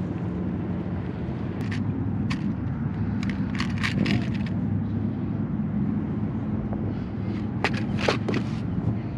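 Metal fishing hooks clicking and rattling in a clear plastic compartment tackle box as they are picked through by hand, a few light clicks early and a cluster of sharper clicks near the end as the plastic box is handled and closed, over a steady low background rumble.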